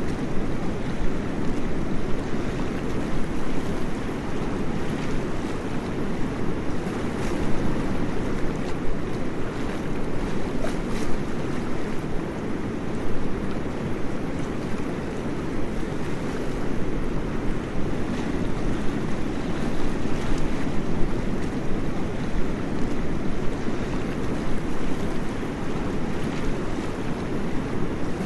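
Waterfall: falling water rushing in a steady, even wash of noise, deepest in tone.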